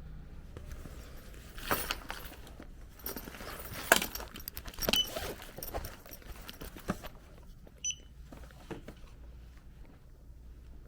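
Scattered clicks and light rattles of small objects being handled, with one short high beep about eight seconds in.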